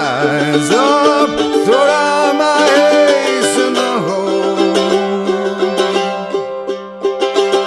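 Background song with plucked strings: a voice sings a gliding line over it for the first few seconds, then the plucked instrumental carries on alone.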